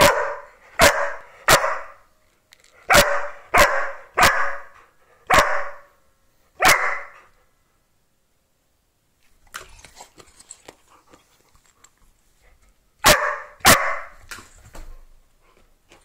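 Australian cattle dog barking sharply at a ball held in front of him, demanding that it be thrown: about eight barks in quick groups, a few seconds of faint scuffling, then two more barks near the end.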